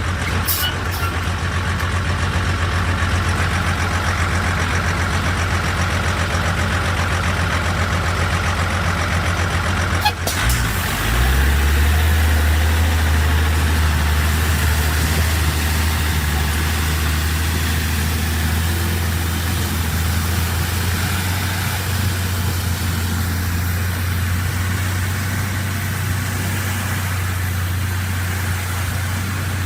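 Heavy diesel engine of road-construction machinery running steadily with a low drone. About ten seconds in there is a sharp click, and a smoother, lower engine drone takes over.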